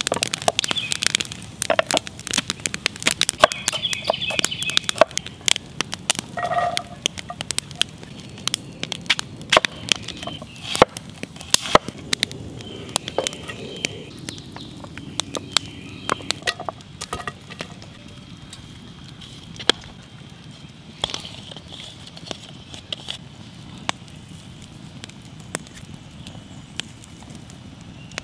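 Wood campfire crackling and snapping, busiest in the first half, with soft handling knocks as chopped onions and carrots are scraped off a wooden board into a cast-iron Dutch oven.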